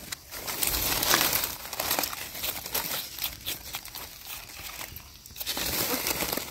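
Dry leaf litter crackling and rustling in irregular bursts as hands brush through it and dig a mushroom out of the forest floor.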